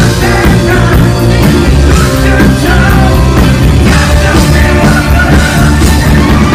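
A live rock band playing loud, with saxophone, electric guitars, bass and drums, and a singer at the microphone.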